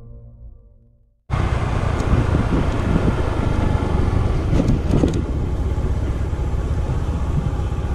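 Intro music fading out, then cutting in suddenly about a second in to a motor scooter being ridden: its small engine running under a steady, rough noise.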